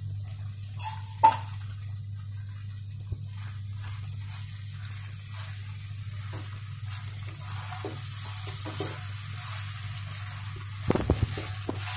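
Vermicelli upma, with ghee just added, sizzling softly in a kadai while a wooden spatula stirs and scrapes through it. There is a sharp knock about a second in and a cluster of spatula knocks against the pan near the end, over a steady low hum.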